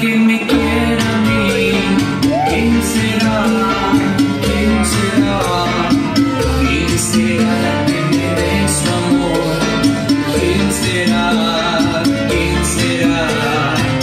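Cha-cha-cha dance music with a steady, even beat, played for a competition heat.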